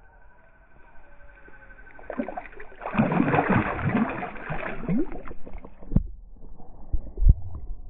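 Water splashing and sloshing, loudest for about three seconds from two seconds in, then quieter splashing with a couple of low thumps near the end.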